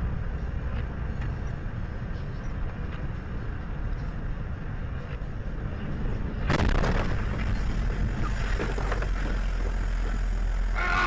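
Steady low rumble of a car driving on a snow-covered highway. About six and a half seconds in, a sudden, louder rushing noise begins and continues as trucks come close through the blowing snow.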